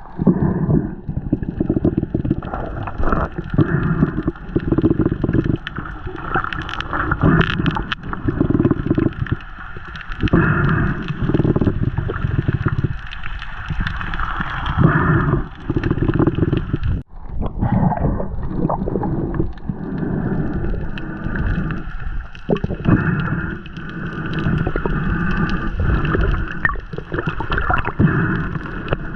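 Seawater gurgling and sloshing in irregular surges, muffled and heavy in the low end, with a brief lull about two-thirds of the way through.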